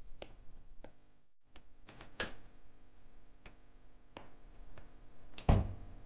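Footsteps in hard shoes crossing a room, sharp separate clicks about half a second to a second apart. Near the end a door is handled, with a double knock and a heavier thud, the loudest sound.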